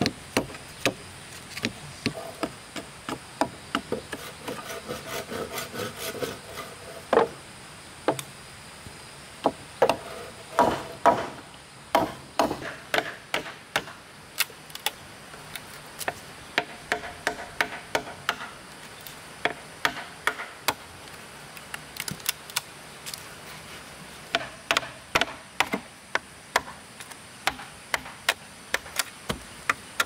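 A hand tool striking bamboo in an irregular series of sharp knocks, at times several a second, with short pauses between runs.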